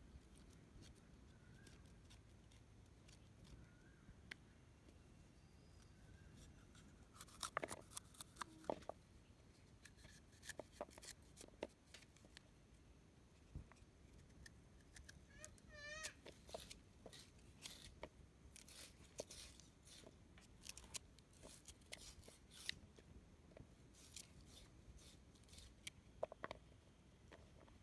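Kitchen knife cutting a raw green mango into chunks: faint, scattered crisp cuts and clicks as the blade goes through the firm flesh and pieces fall into a plastic bowl.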